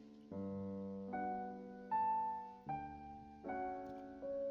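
Background piano music: a slow, gentle melody of chords, a new note struck about every 0.8 seconds and left to ring down.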